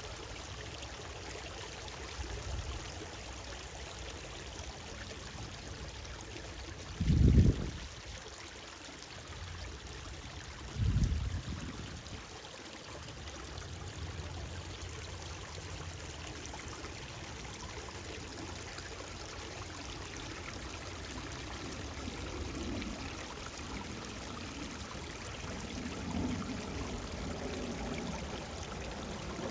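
Stream water running steadily. Two brief low rumbles cut in about 7 and 11 seconds in.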